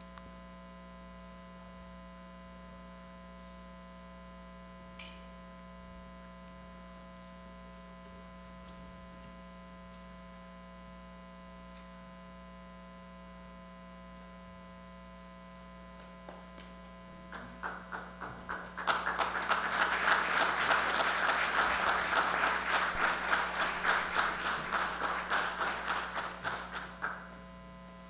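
A steady mains hum, then an audience applauding from about seventeen seconds in, the clapping falling into an even beat and stopping shortly before the end.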